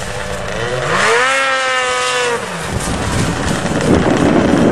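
Snowmobile engine being throttled up: its pitch rises, holds for about a second and a half, then drops as the throttle is let off. After that comes a rough rushing noise.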